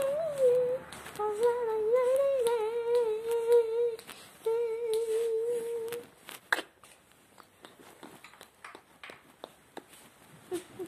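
A person humming a wavering tune for about six seconds, with a short break partway through, followed by a few faint clicks and taps.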